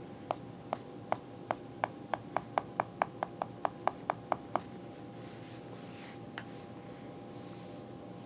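A quick run of about seventeen sharp clicks that come faster and faster over the first four and a half seconds, then one more faint click a couple of seconds later.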